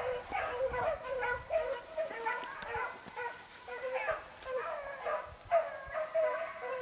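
A pack of beagles baying while trailing game through the brush. Several dogs give tongue at once in short, overlapping cries that run on without a break.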